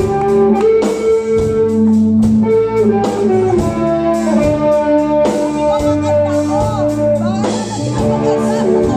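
Live rock band playing: electric guitars, bass and drum kit over a steady beat, with a lead line bending in pitch through the middle.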